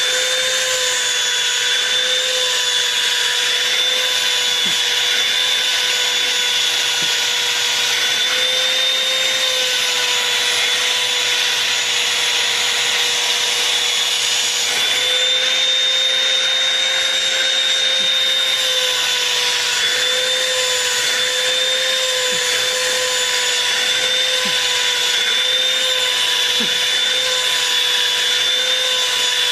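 Vacuum cleaner running steadily, a motor whine over rushing air, its pitch wavering slightly as the hose's brush nozzle is drawn over a cat's fur.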